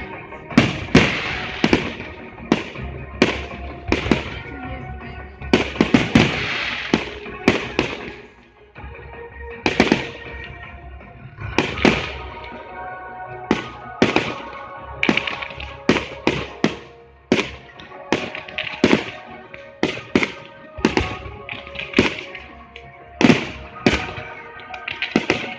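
Fireworks display: aerial shells bursting in a continuous string of sharp bangs, one or two a second and coming faster in the second half, with music playing underneath.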